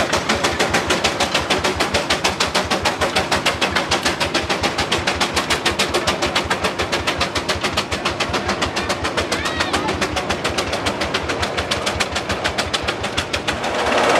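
Advance-Rumely OilPull tractor's slow-running kerosene engine working under load pulling a gang plow: a rapid, even exhaust beat of about five or six pops a second. Near the end the beat gives way to a louder, steadier noise.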